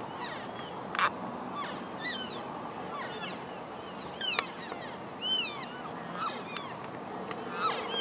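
Elk cows and calves calling to each other: a running series of short, high-pitched chirping calls that rise and fall in pitch, about two a second and often overlapping. A sharp click comes about a second in.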